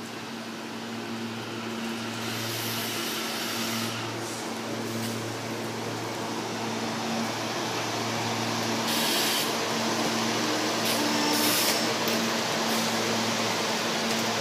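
SEPTA Silverliner IV electric multiple-unit train approaching and running past, a steady electric hum with a hissing rush of wheel and rail noise that grows louder as it nears. Short bursts of hiss stand out about nine and eleven seconds in.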